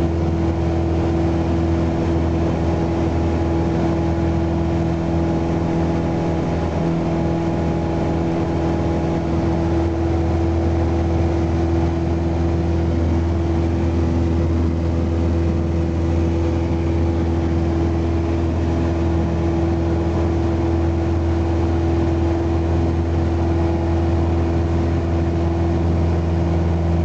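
Aircraft engine running steadily at constant power, a continuous low drone with a few fixed pitches and no rise or fall.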